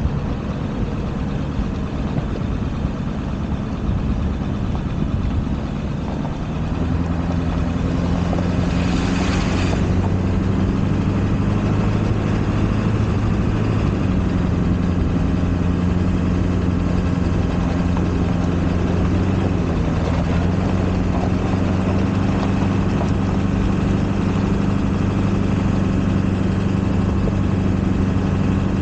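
A 1999 Ford F-250 pickup's engine running steadily as the truck drives up a gravel road, with road and wind noise. About six seconds in the engine gets louder and its note steps up as it works harder on the climb. A brief hiss comes about nine seconds in.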